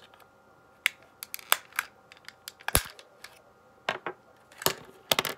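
Sharp plastic clicks and snaps as a small flathead screwdriver pries the side grip panel off an Xbox One controller, its little retaining hooks popping out of their clips rather than breaking. The clicks come one by one, the loudest about three seconds in and a quick cluster near the end.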